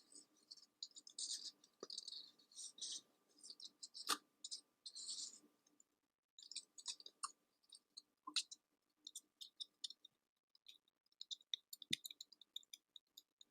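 Faint, close crackling and clicking: dense clusters of tiny crackles for the first several seconds, a brief pause about six seconds in, then scattered crisp clicks.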